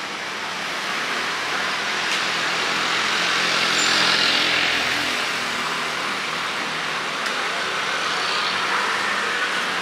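Street traffic: a motor vehicle passing close by, its noise swelling to a peak about four seconds in and fading, with a smaller swell near the end.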